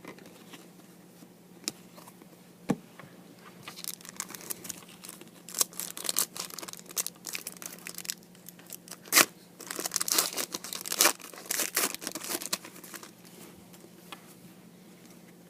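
Trading card pack wrapper crinkling and tearing as a pack is opened and the cards are handled, a run of crackles and clicks that is busiest in the middle and dies down near the end.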